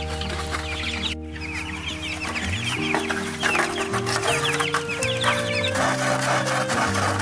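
Chickens clucking in short quick calls over background music of slow, held notes.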